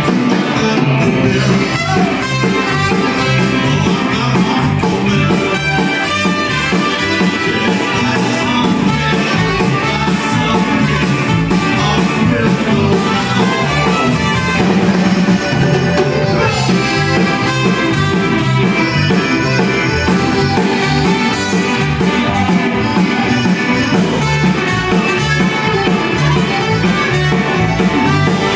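A live Tex-Mex band playing an instrumental stretch of a song: drum kit, electric guitar, accordion and trumpet over keyboard, loud and steady throughout.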